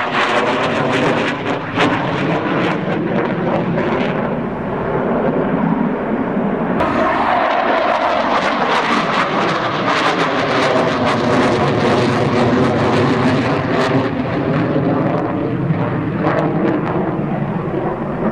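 A MiG-29 fighter's twin turbofan engines flying an aerobatic display: a loud, continuous jet noise with a sweeping, phasing quality as the aircraft moves across the sky. It turns brighter and harsher about seven seconds in.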